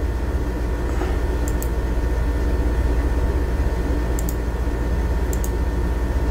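Steady low electrical hum with a faint high whine and hiss: the background noise of the recording. Faint sharp double clicks come three times.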